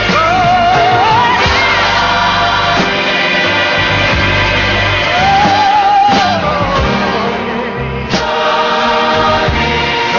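Gospel music: sung vocals with vibrato and choir voices over instrumental backing.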